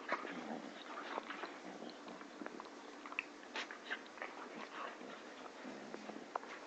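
Two puppies play-fighting right at the microphone: scuffling, mouthing and nipping at each other in a run of short, sharp clicks and rustles, with a brief squeak about three seconds in.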